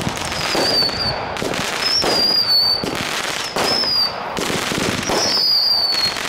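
Aerial fireworks firing in a rapid string of bursts and crackles, each short whistle falling in pitch, about one every second and a half.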